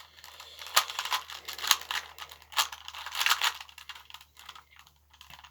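Rubik's Cube being turned quickly by hand: rapid clicking and clacking of the plastic layers, thinning out to a few scattered clicks in the last second or two.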